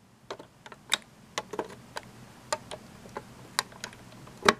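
Irregular light clicks and taps of a hex driver pressing the friction-fit plastic selector knob down onto a multimeter's rotary switch, with a louder pair of clicks near the end.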